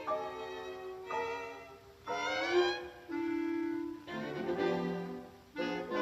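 Orchestral cartoon score: a run of held chords, a rising glide about two seconds in, and quicker short notes near the end.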